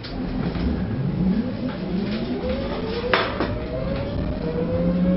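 Electric tram pulling away and gathering speed: its traction motors give a whine that rises steadily in pitch over the rumble of the running gear. A single sharp clack about three seconds in is the loudest moment.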